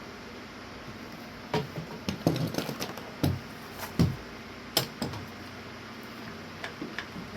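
Wood and tools knocking and clattering as a 2x4 is set in place on the workbench for cutting: a cluster of separate knocks in the first half, with a few lighter clicks near the end. No saw is running.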